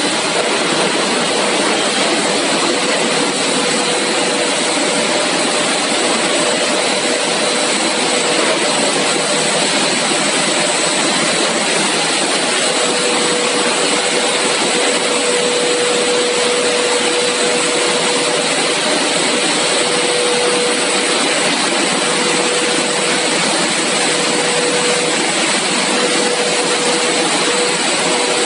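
Steady machine noise from a CPP three-layer co-extrusion cast film line running: a loud, constant rushing roar with a steady mid-pitched hum that grows stronger about halfway through, and a faint high whine.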